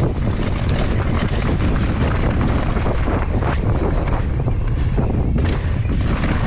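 Wind buffeting the microphone of a camera on a mountain bike riding a trail: a steady low rumble, with scattered short rattles and crunches from the bike and the ground.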